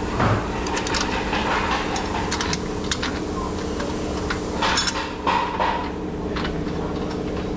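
Scattered metallic clicks and clinks of bolts and hand tools being handled during car suspension work, with a louder clatter about five seconds in, over a steady background hum.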